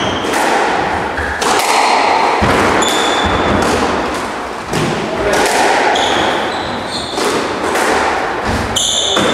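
Squash rally: the ball smacked by rackets and hitting the front and side walls in a run of sharp, echoing impacts, roughly one a second, with short high squeaks of shoes on the wooden court floor.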